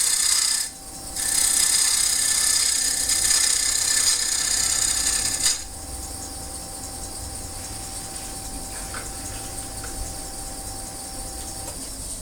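Bowl gouge cutting a spinning wooden bowl blank on a wood lathe, a loud rasping shave with a short break before a second in. About five and a half seconds in the cut stops with a click, leaving the lathe running with a quieter steady hum and whine.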